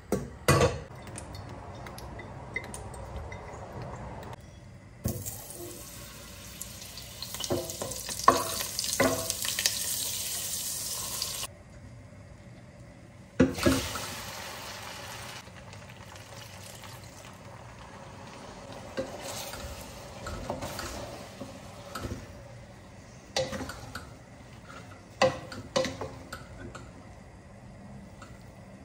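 Fettuccine being drained and tossed in a steel pot. A clank as the pot is lifted, then hot pasta water pours through a plastic colander for about six seconds and stops abruptly. A clank follows as the pasta drops back into the pot, and then scattered knocks as it is tossed with a wooden spoon.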